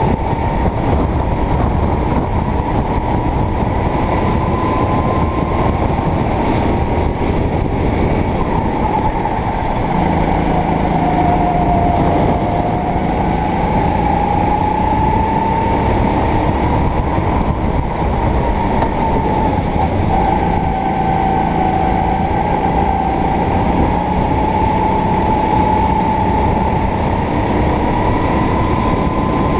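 Sodi racing kart's engine running hard, heard onboard, its whining note falling and rising as the kart slows for corners and accelerates out of them, over a constant low rumble from the kart on the track.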